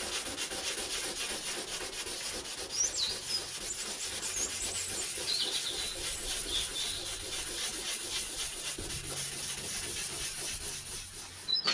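Sandpaper rubbed back and forth by hand over a 1961 Rover P4's aluminium boot lid in steady scratchy strokes. Fine 320-grit paper is smoothing out the rough, scratched surface left by coarse paper.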